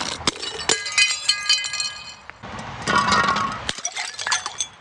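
Glass jars hitting concrete steps and shattering, with a run of ringing glass clinks about a second in and a noisy crash and splash of liquid about three seconds in, followed by scattered tinkling shards.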